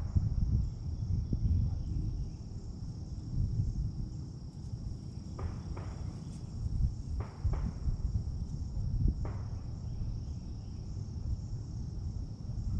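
An insect trills steadily at a high pitch over a fluctuating low rumble of wind on the microphone. A few faint short sounds come in pairs about a second and a half apart, and again near the middle.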